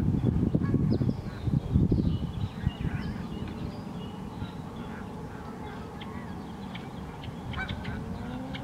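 Wind buffeting the microphone in gusts for the first couple of seconds, then scattered short bird calls and chirps, with ducks quacking among them.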